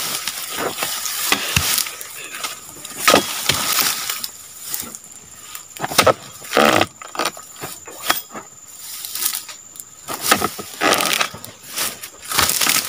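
Dodos chisel chopping into the frond bases of a low oil palm, a series of irregular sharp chops and cracks.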